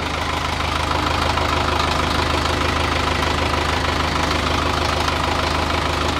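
Caterpillar 910 wheel loader's diesel engine idling steadily, heard close up at the open engine bay. It is being checked for oil leaks after its heat exchanger was replaced.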